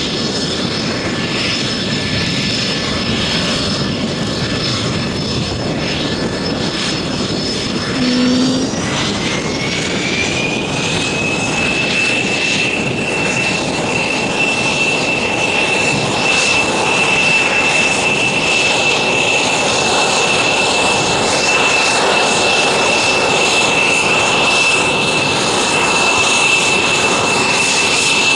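Aircraft engine running with a steady rushing noise and a thin whine that rises in pitch about eight to ten seconds in, then holds at the higher pitch as the engine speeds up.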